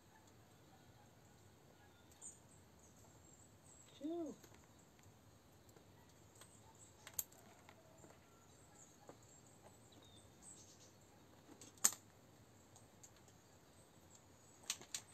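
A quiet room with a single short meow from a domestic cat about four seconds in, rising then falling in pitch. A few sharp clicks and taps follow, the loudest about twelve seconds in and a small cluster near the end, as the cat paws at the microphone.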